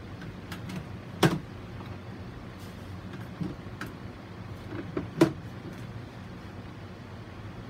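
Two sharp knocks about four seconds apart, with a few fainter ticks around them, over a steady low hum.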